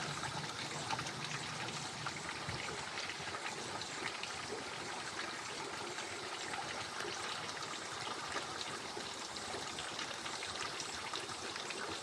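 Water running steadily, a continuous trickling, pouring flow.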